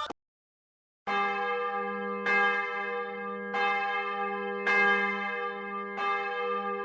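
A single church bell tolling slowly as a mourning toll. After about a second of silence it strikes five times at the same pitch, about every second and a quarter, each stroke ringing on into the next.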